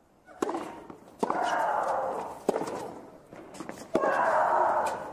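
Tennis rally: racket strikes on the ball, about a second and a half apart, and two of them, the serve and a later stroke, each come with a long, loud shriek-like grunt from the server.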